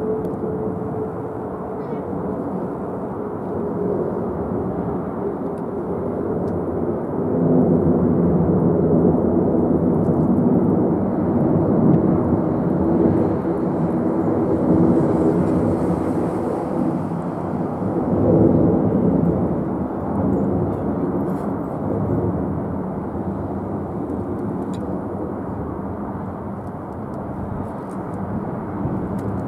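Airbus A380 climbing out after takeoff, its four turbofan engines at climb thrust: a deep, loud jet noise with a steady low hum in it. It swells about a quarter of the way in, stays loudest through the middle, then slowly fades as the aircraft climbs away.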